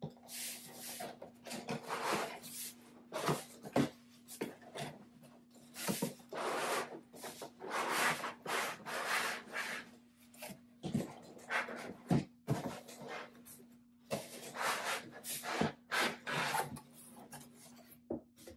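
Paper and cardboard packaging being handled and pulled out of a box: irregular rustling and scraping in short bursts of a second or less.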